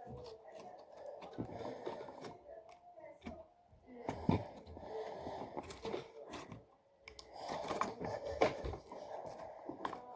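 Hands squishing and poking homemade slime, with many small sticky clicks and crackles.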